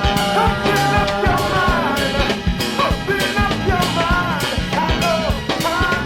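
A band's recorded song playing: a steady drum-kit beat under a melody line that bends up and down in pitch.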